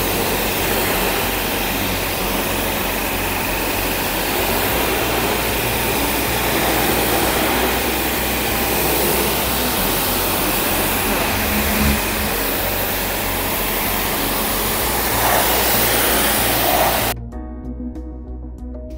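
Karcher HD 6/15-4 Classic pressure washer running, its 2.5 kW motor and pump humming under the steady hiss of the high-pressure water jet spraying onto a car. The sound cuts off suddenly near the end and soft background music takes over.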